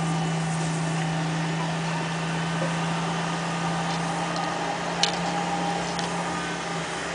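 A steady low hum, like a motor running at idle, over a constant background rush, with a sharp click about five seconds in.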